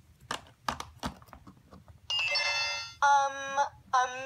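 Three sharp plastic clicks as the Flipsies Styla talking toy is handled, then its electronic chime, about a second long, followed by the toy's recorded voice starting a phrase.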